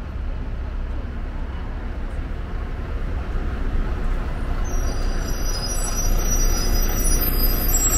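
Road traffic rumbling at close range, growing louder as a double-decker bus draws alongside. From about five seconds in, several high-pitched whining tones join in.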